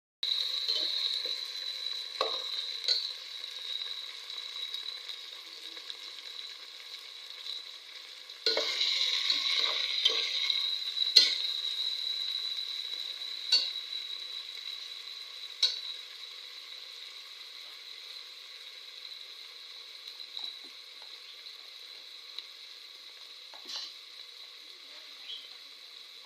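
Food frying and sizzling in hot oil in a cooking pan, while a spoon stirs and knocks against the pan in a few sharp clicks. The sizzle swells loudly about eight seconds in, then slowly dies down.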